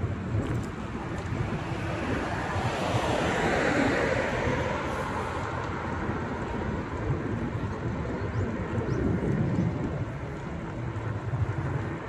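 Strong wind buffeting the microphone as a steady low rumble, with a broader rush of noise swelling and fading about three to five seconds in.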